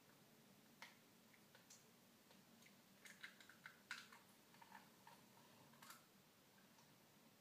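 Faint, scattered clicks and light taps of eggshell halves as an egg yolk is passed back and forth between them to separate it from the white, with a small cluster of taps a few seconds in.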